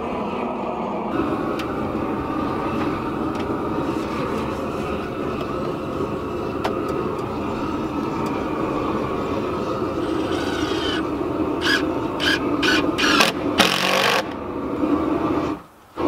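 Cordless drill/driver fastening a window frame in several short bursts about 11 to 14 seconds in, the last one longest, over a steady background drone.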